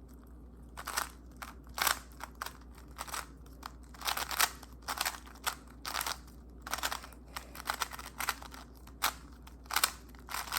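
Plastic puzzle cube being turned fast during a timed speedsolve: quick clacking turns of its layers, coming in irregular bursts with short pauses between move sequences.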